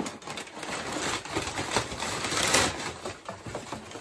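Brown kraft packing paper rustling and crinkling as it is handled and pulled out of a parcel, a continuous run of crackles.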